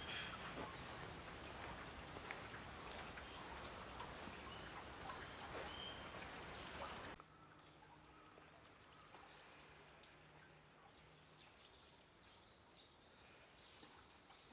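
Quiet outdoor background noise with a few faint bird chirps. About halfway through, it drops suddenly to a quieter background.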